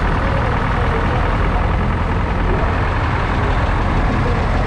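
A 1952 Fordson Major's 3.6-litre four-cylinder diesel engine running steadily and loudly as the tractor drives slowly past at close range.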